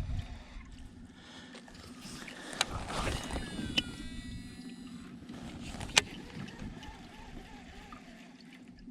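Kayak on open water: a low steady hum with water noise, and a few sharp knocks, the loudest about six seconds in.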